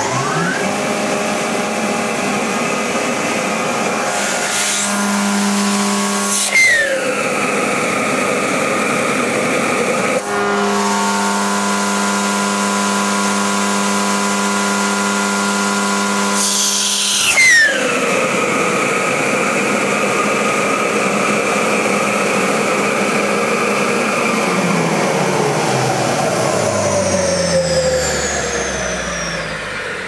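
Judson Turbovac 4720's 20 hp positive displacement blower vacuum starting up and running loud with its inlet open. Twice a vacuum gauge is held over the inlet, which brings in a steady low hum; each time it ends with a falling whoosh as the seal is broken. In the last few seconds the machine winds down, its pitch falling.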